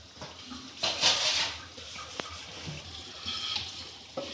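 Chicken mince and oil sizzling in a frying pan on a gas burner, an uneven hiss that swells louder about a second in, with a single sharp click a little after two seconds.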